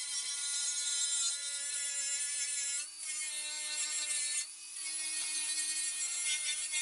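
Cordless angle grinder running with a steady whine as it strips paint and rust from the steel of a car's wheel arch. The whine dips briefly twice as the disc bites into the panel.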